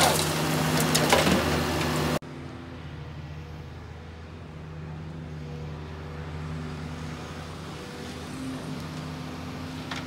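Diesel engine of a Doosan wheeled excavator running loud under work as it loads a dump truck, with clatter in the first couple of seconds. It cuts off suddenly and a quieter, steady engine hum carries on.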